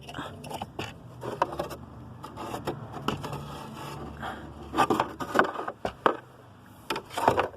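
Irregular scraping and rubbing with many clicks and knocks, from the car's air ventilation duct and the dashboard parts around it being handled, with a cluster of louder knocks about five seconds in and again near the end.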